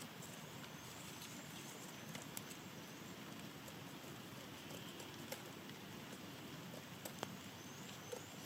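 Faint outdoor ambience: a steady hiss with a few short chirps from small birds, high-pitched, and now and then a light click or tap.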